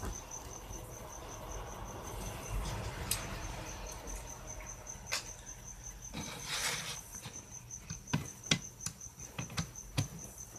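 Small metal tools working on a hard drive's casing: a flathead screwdriver held in vise grips scraping and turning in a small Torx screw, with scattered clicks and taps of metal on metal that grow sharper near the end. A faint high chirp repeats about four times a second throughout.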